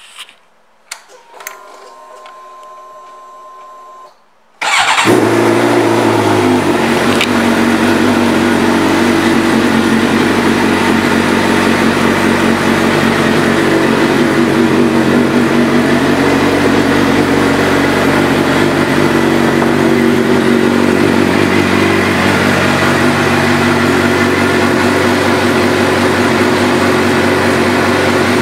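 2011 Suzuki GSX-R750 inline-four with a Two Brothers Racing exhaust: a few seconds of a quiet electric hum, then the engine fires about five seconds in. It settles slightly lower after a second or two and idles steadily.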